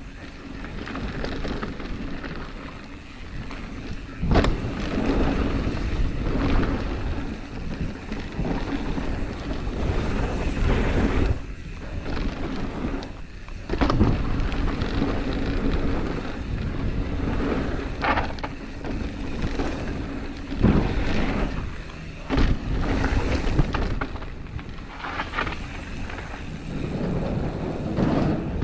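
Mountain bike ridden down a rough trail: wind buffeting the microphone over a steady rumble of tyres, with frequent sharp knocks and rattles from the bike hitting bumps.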